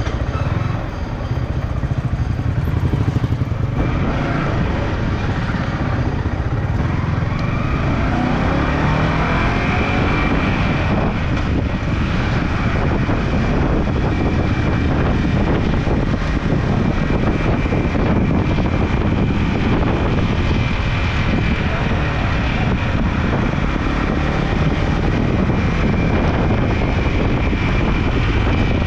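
Motorcycle being ridden, its engine running under a dense low rumble, with the engine note rising as it accelerates around eight seconds in. A steady high whine joins at the same point and continues.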